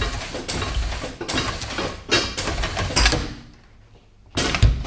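Industrial sewing machine running, stitching through several layers of thick webbing strap, heavy going for the machine. It stops about three seconds in and starts again briefly near the end.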